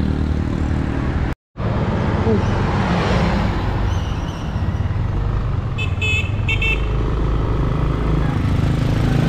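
Motorcycle engine running steadily beside a highway, with road traffic passing. About six seconds in, a vehicle horn gives a few quick high-pitched toots.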